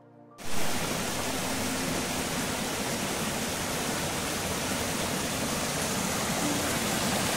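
A rain-swollen forest stream rushing and splashing over rocks in small cascades, a steady, even rush that cuts in abruptly about half a second in after faint music.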